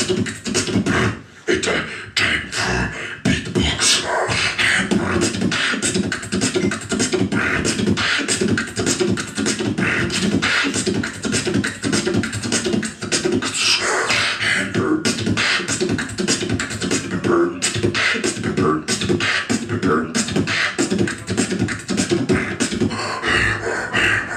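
A beatboxer performing a continuous fast beat with his voice: rapid mouth-made kick, snare and hi-hat sounds in a steady rhythm, with hummed tones mixed in.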